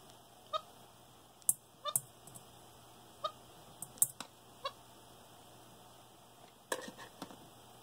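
Capuchin monkey giving about four short squeaky chirps, spaced irregularly, with several sharp clicks or taps in between, the loudest about four seconds in and a quick run of them near the end.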